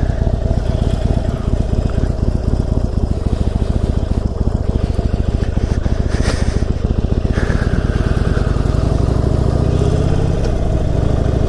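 Harley-Davidson Forty-Eight's 1200 cc air-cooled V-twin engine running steadily while riding, with wind noise.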